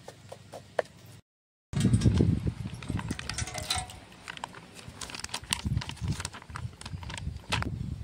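A wooden spatula scrapes and taps an iron wok a few times, then after a cut, thick curd is poured from a container into a steel bowl, with many sharp clicks and knocks over a low rumble.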